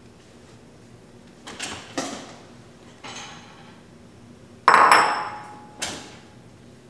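Kitchenware being handled: a few light knocks and clunks, then about five seconds in a louder clatter of a dish that rings briefly, and one more knock after it.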